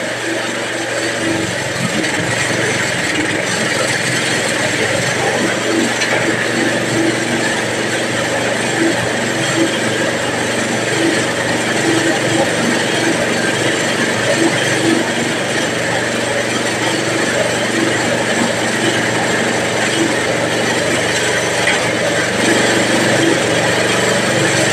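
Mushroom substrate bag-filling machine running steadily while bags are filled with sawdust substrate.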